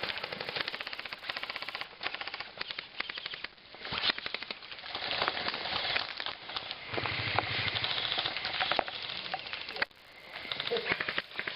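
Airsoft guns firing rapid bursts of shots, a fast run of sharp clicks that keeps going with short gaps.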